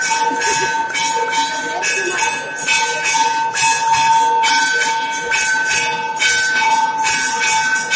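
Temple bells and cymbals ringing during aarti: rapid, steady metallic strikes over a continuous ringing bell tone.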